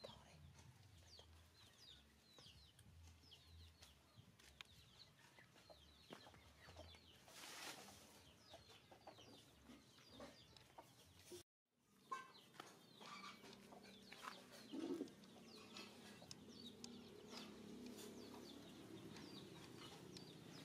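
Faint chickens clucking and peeping in the background, many short quick chirps. The sound cuts out completely for a moment about halfway through.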